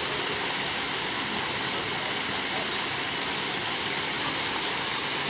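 Steady rush of falling water: an even hiss with no distinct knocks or splashes.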